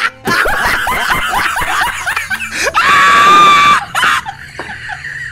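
A high-pitched scream, held steady for about a second midway, amid a run of shorter squealing cries.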